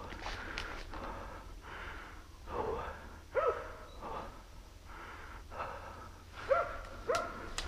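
A hunter breathing hard in repeated heavy breaths while climbing through brush. Hunting dogs bark a few short times, once about three seconds in and twice near the end.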